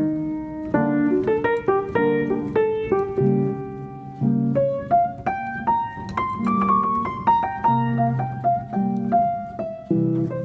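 Background piano music: a melody of single notes moving over held low chords.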